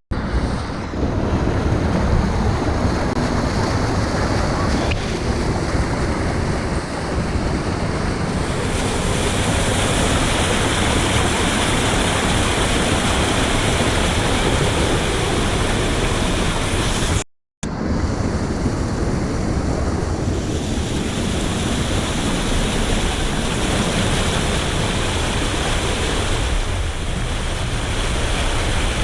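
Steady rush of water from a river cascade into a natural pool, loud and even, broken once by a short dropout about two-thirds of the way in.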